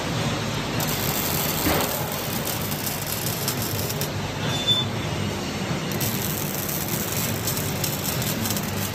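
Wire-fed robotic MIG welding arcs hissing and crackling steadily, over the continuous noise of a fabrication shop.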